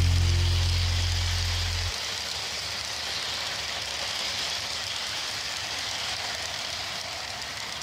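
Lionel O-gauge freight cars' metal wheels rolling over FasTrack three-rail track, a steady hiss-like rolling noise as the train passes close by. Background music fades out and stops about two seconds in.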